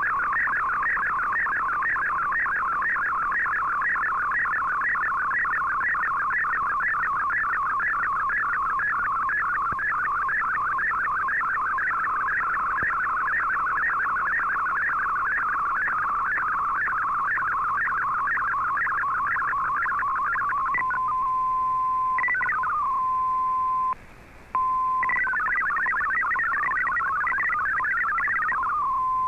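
Shortwave digital-mode broadcast through the receiver: a rapid warble of MFSK data tones carrying a picture, breaking off about two-thirds of the way through into a steady single tone. After a short dropout, a few seconds of MFSK64 text data tones warble again near the end.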